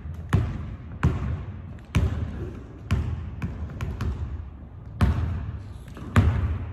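A basketball being dribbled on a hardwood gym floor, bouncing roughly once a second, each bounce echoing around the large hall.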